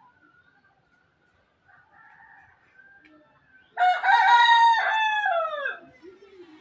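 A rooster crowing once, loud and about two seconds long, a little past halfway, its pitch falling at the end; fainter calls come before it.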